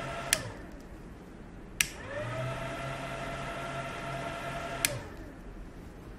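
Plastic rocker power switch on a 22-antenna signal jammer clicked three times: off, on, off. The built-in cooling fans whine and hum and stop at the first click. After the second click they spin up with a rising whine and run steadily, then cut off at the third click.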